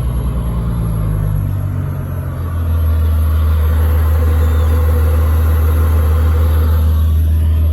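Bentley Continental GT Speed's twin-turbo W12 engine idling; its fast idle drops about two seconds in and settles to a steady, lower idle.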